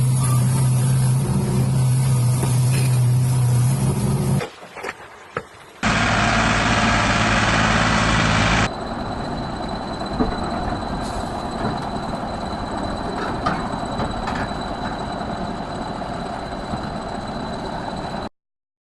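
Engines of heavy machinery running, in a string of clips that change abruptly about four and a half, six and nine seconds in.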